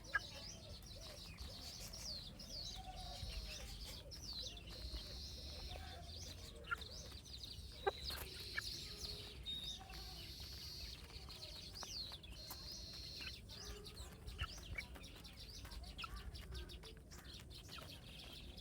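A group of baby chicks peeping continuously, many short high chirps overlapping, with lower clucking calls now and then and a couple of sharp clicks about halfway through.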